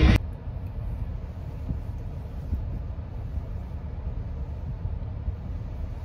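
Music cuts off abruptly at the very start, leaving a steady low rumble inside a car cabin.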